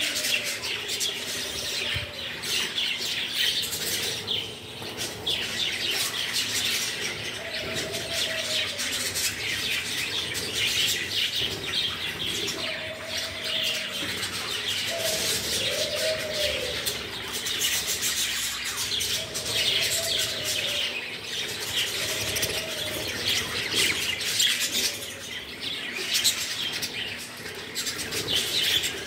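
A flock of budgerigars chattering continuously, a dense mass of overlapping chirps and warbles, with lower drawn-out calls recurring every couple of seconds.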